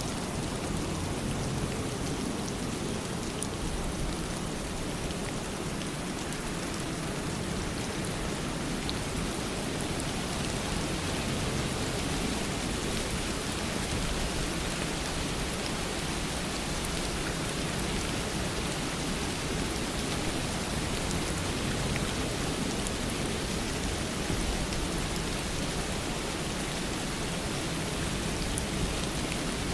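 Steady rain falling, with scattered individual drops ticking through the even hiss.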